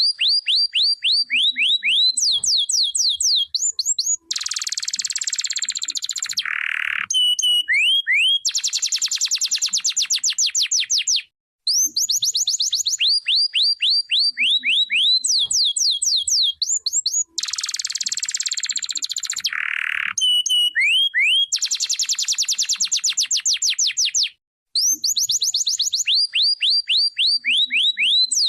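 Domestic canary singing: fast trains of repeated sweeping whistled notes, broken by a harsh buzzing roll and a lower rapid trill. The same song phrase repeats about every 13 seconds, with a brief pause between repeats.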